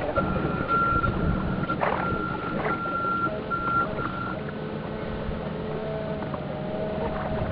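Electric drive of a radio-controlled model tug, heard from a camera aboard and sped up fourfold: a steady high motor whine that cuts in and out as the throttle changes, over a low rumble.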